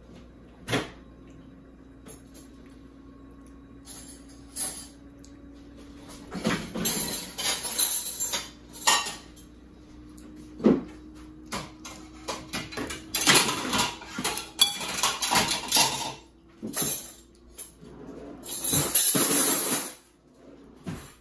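Dishes and cutlery clattering: a fork and bowl clinking and scraping in three stretches of a few seconds each, with single sharp knocks between them.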